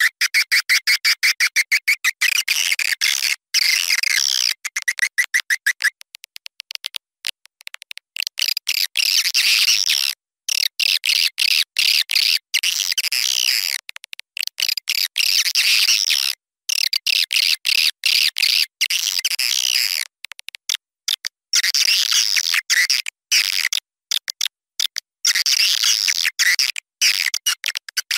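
Edible-nest swiftlet calls on a swiftlet lure recording: rapid trains of high chirps and clicking twitters, cut by abrupt short silences, the kind of sound played to draw swiftlets home to a swiftlet house.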